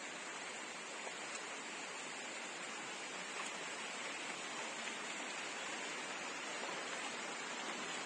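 Steady rush of water from a shallow stream running over rocks.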